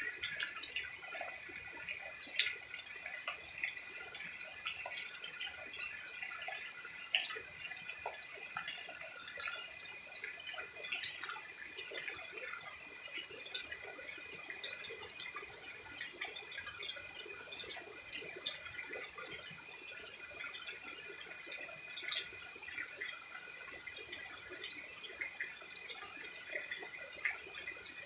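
Water dripping and pattering, as of rain dripping off leaves and eaves: dense, irregular drops with a steady high hum underneath.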